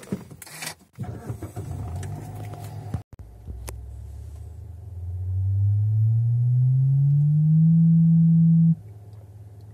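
The stock 6.5-inch Bose subwoofer of a 2011 Mazda 3 plays a sine sweep inside the car's cabin: a low tone rises steadily in pitch and grows much louder, then cuts off suddenly about a second before the end. Rustling and knocks come before the sweep starts.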